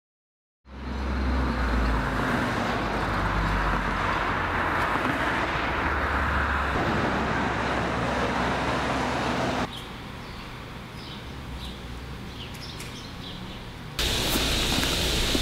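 Street traffic ambience, a steady rumble and hiss, fading in after a moment of silence; about ten seconds in it drops to a quieter outdoor ambience with a few faint chirps, and near the end it cuts abruptly to a steady room hum.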